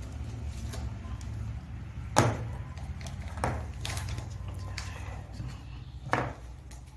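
A few short clicks and knocks from wires and components being handled and plugged into a breadboard, the loudest about two seconds in, over a steady low hum.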